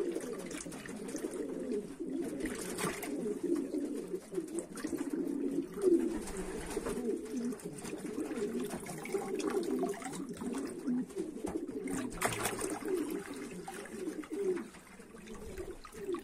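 A group of domestic pigeons cooing continuously, several birds overlapping in a low, rolling coo, with a couple of brief sharp knocks about three and twelve seconds in.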